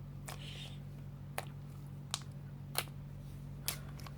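Slime being squeezed and worked by hand, giving a few sharp clicks and pops, about five spread across four seconds.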